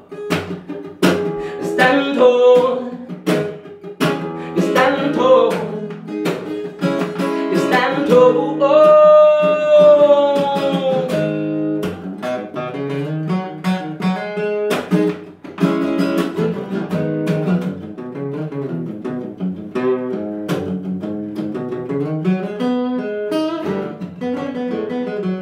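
Solo steel-string acoustic guitar played steadily, note by note. A man's voice sings in places, holding one long note that slides down in pitch about nine seconds in.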